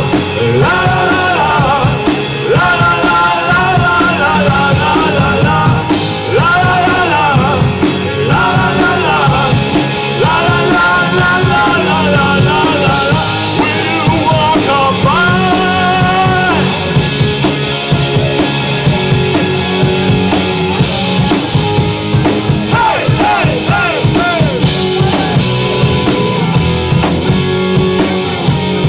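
Live rock band playing electric guitars and drum kit. Long held melodic notes ride over the band for the first half, then the playing goes on without them.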